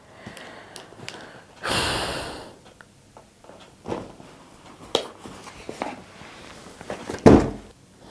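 A cardboard shipping box being handled and moved: a brief rustling scrape about two seconds in, several light knocks, and a heavier thump near the end.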